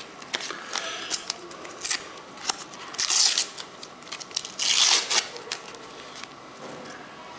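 Panini sticker packet being torn open and the stickers handled: rustling and crinkling paper with small clicks, and two louder rips about three and five seconds in.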